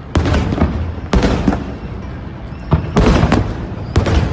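Aerial fireworks shells bursting, four loud booms a second or so apart, each trailing off.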